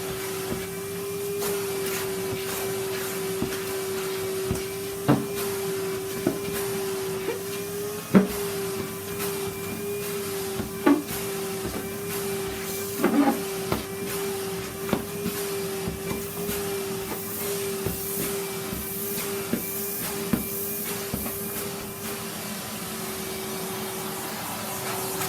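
Vacuum cleaner running steadily with a constant hum, sucking up sanding dust, with occasional sharp clicks and knocks from the nozzle.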